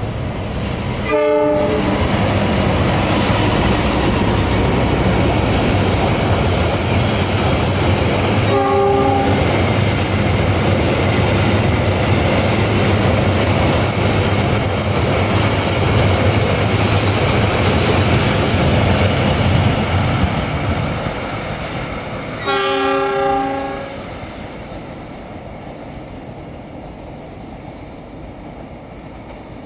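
Diesel locomotive hauling a passenger train past: the engine and the wheels on the rails run loud, then fade as the train moves away. The locomotive's horn sounds briefly about a second in, again about nine seconds in, and gives a longer blast just before the noise fades out.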